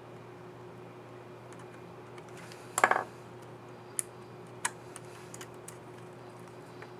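Plastic laptop keycap and scissor mechanism on an HP Pavilion 15 keyboard clicking as it is handled and pressed: a quick rattle of clicks about three seconds in, then two single clicks and a few light ticks, over a faint steady hum.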